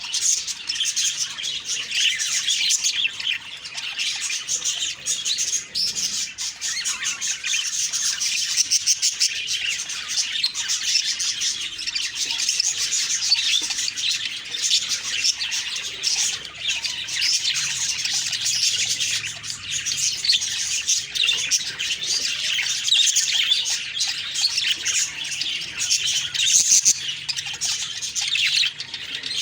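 A flock of budgerigars chirping and chattering without pause, a dense mix of quick high chirps and squawks.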